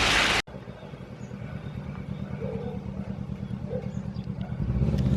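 Rain hiss that cuts off abruptly about half a second in, followed by a motor vehicle's engine with a low, pulsing rumble that grows steadily louder, as if coming closer or speeding up.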